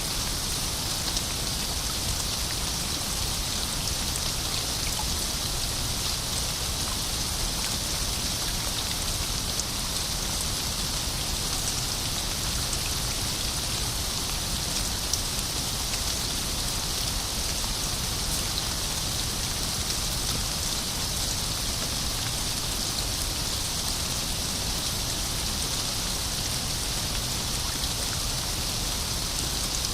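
Steady rain falling, an even hiss with faint scattered drop ticks throughout.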